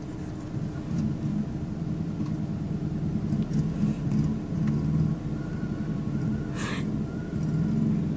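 Car engine and tyre rumble heard from inside a slowly moving car, steady and low, with a brief hiss about six and a half seconds in.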